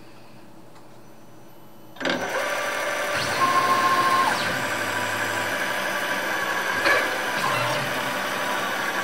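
Tormach PCNC 770 mill's spindle, fitted with an auto-reversing tapping head, starting up about two seconds in and then running steadily with a mechanical whine. There is a single sharp clunk about seven seconds in.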